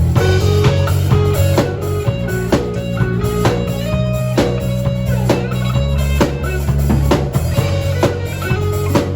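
Music with guitar over a sustained bass line and a drum kit keeping a steady beat.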